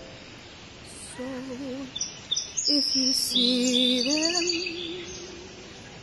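A woman singing slow, long-held notes with a wavering vibrato, with bursts of high bird chirps and trills mixed in through the middle.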